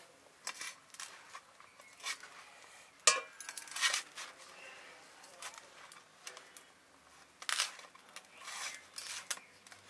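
A hand kneading and pressing crumbly rice-flour dough against a steel plate: short, uneven scrapes and rubs of dough on metal, with a sharp clink about three seconds in.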